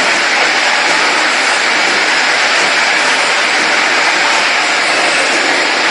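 Automatic cough syrup bottle filling and capping line running: a loud, steady mechanical noise without distinct clicks or a rhythm.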